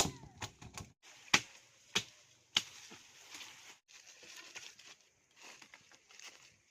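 Handling noise: a few sharp knocks and clicks, the loudest about a second and a half in, then twice more about half a second apart, with rustling and lighter ticks between them.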